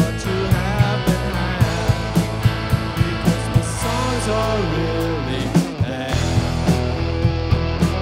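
A rock band playing live: a drum kit keeping a steady beat, electric bass and two electric guitars, with a sung lead vocal. The bass drops out for a moment about six seconds in, then comes back.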